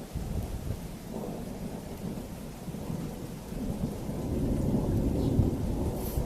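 Thunder rumbling low in a strong thunderstorm, swelling louder in the second half, with rain falling.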